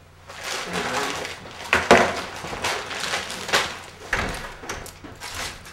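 Footsteps and clothing rustle as two people get up and walk out, with the handling of a wooden door: a string of uneven knocks and rustles about every half second, with a dull thump about four seconds in.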